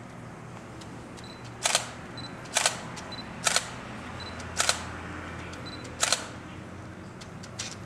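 Camera shutter firing five times at irregular intervals of about a second, each a quick double click. Faint short high beeps fall between the shots.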